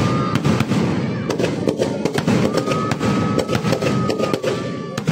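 Firecrackers bursting in quick succession: sharp cracks several times a second over a dense low rumble, with a thin steady whistle for about two seconds in the middle.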